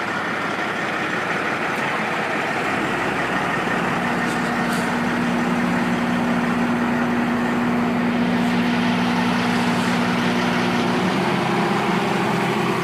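Komatsu PC228USLC excavator's diesel engine running steadily. A steady droning tone comes in about four seconds in and shifts pitch near the end.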